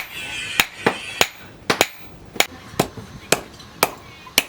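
Hand hammer striking steel on an anvil in forging: about a dozen sharp blows in an uneven rhythm of two to three a second, as brake-disc steel is hammered into a knife blank.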